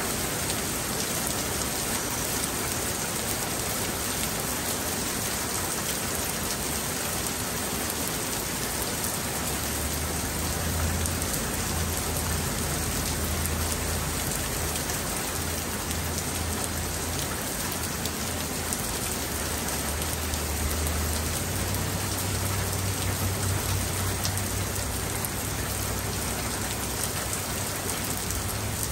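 Steady rain falling, an even hiss of drops on surfaces. A low hum joins about nine seconds in and wavers on and off.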